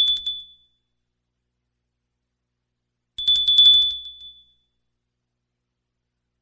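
Small bell ringing in quick rattling strikes on a single high, clear tone. One ring is dying away at the start, and another rings about three seconds in, lasting just over a second.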